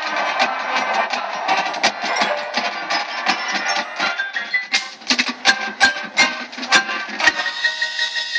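Marching band playing a field show: brass and woodwinds over percussion. Sharp drum hits stand out more plainly in the second half.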